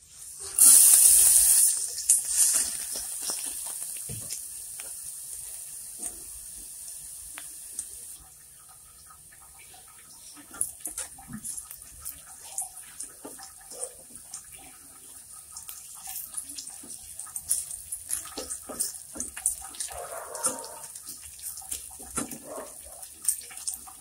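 Chopped garlic hits hot oil in a stainless steel pot with a loud hiss about half a second in, which fades to a steady sizzle. From about ten seconds on, a slotted spatula scrapes and taps against the pot as the garlic is stirred.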